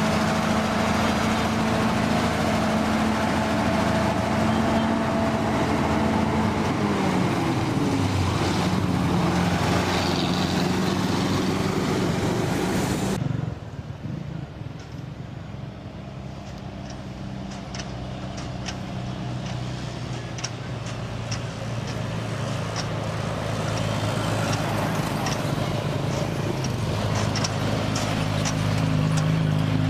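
Heavy diesel lorry engines passing close by on a road. The first lorry's engine runs steadily, then its note drops in pitch about seven seconds in. After a sudden cut the sound is quieter, with scattered small clicks, and another lorry's engine builds as it approaches and passes near the end.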